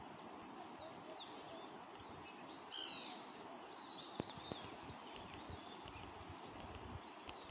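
Steady, distant rush of a mountain river heard from far above, with many small birds chirping over it; a louder flurry of bird calls comes about three seconds in.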